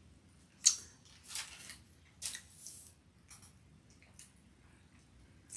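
Thin Bible pages rustling as they are handled and turned, in several short bursts, the first about a second in being the loudest.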